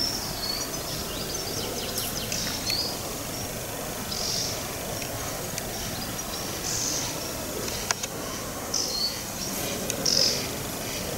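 Small bird giving short, high calls every couple of seconds, over a steady outdoor background.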